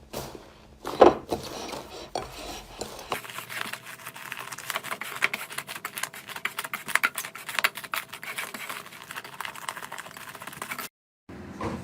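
Slime being squeezed and worked by hand: a few soft squishes, then from about three seconds in a dense run of rapid crackling clicks and pops, which cut off abruptly near the end.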